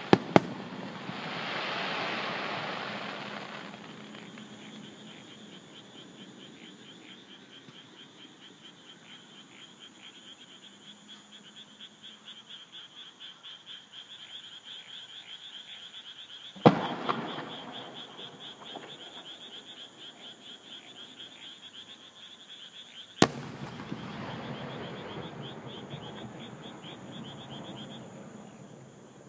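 Distant fireworks: two sharp bangs at the start followed by a rumbling echo, then single bangs about 17 and 23 seconds in, each trailing off. Between them a frog and insect chorus calls with a rapid, even, pulsing trill.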